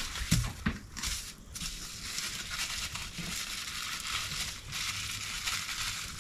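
Plastic packing material, bubble wrap, crinkling and rustling steadily as an item is wrapped for shipping, with a few sharper crackles in the first second.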